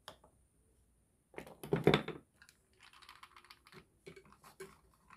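Plastic toy-kitchen pieces being handled and set down: a run of clicks and clatter, loudest about a second and a half in, then a short rustle and a few light knocks.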